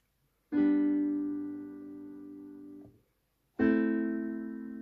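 SouidMy G-310W digital piano playing a bright piano voice: a chord struck about half a second in, fading and released just before three seconds, then a second chord struck about three and a half seconds in that is still sounding at the end.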